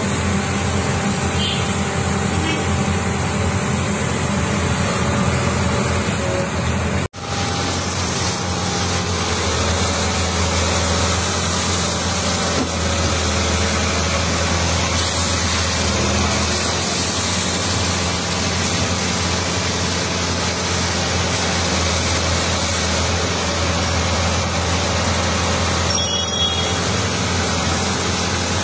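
CAT backhoe loader's diesel engine running steadily, with road traffic passing.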